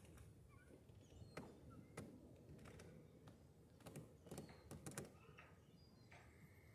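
Near silence, with a handful of faint clicks and knocks, several of them clustered between about four and five seconds in.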